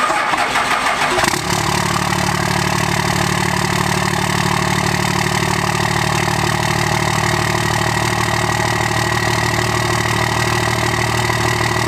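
Dodge Ram's Cummins turbo-diesel inline-six cranking on the starter for about a second, catching, and settling into a steady idle. It is heard at the outlet of a 4-inch exhaust ending in an oversized stack tip.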